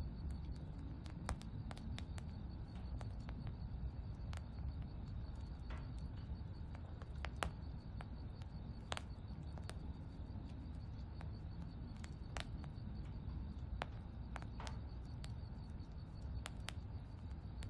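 Quiet outdoor ambience: a steady low rumble with scattered sharp ticks and clicks, the loudest of them about seven and a half seconds in, over a faint steady high tone.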